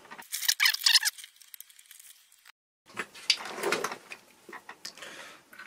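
Clicks, scrapes and knocks of the plastic RC car body and small parts being handled and turned over on a workbench, with a short scraping sound in the first second.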